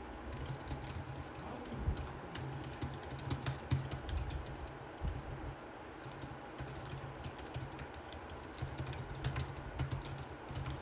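PVC pipe frame and plastic fittings being handled and adjusted: irregular light clicks and knocks, with soft low thumps.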